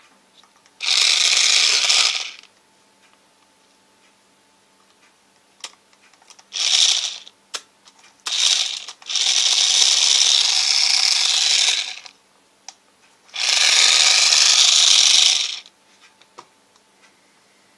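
Small electric drive motor and plastic gears of a 1:32-scale radio-controlled toy car whirring in bursts: a run of about a second and a half, two short bursts, then a longer run of about three seconds and another of about two seconds near the end.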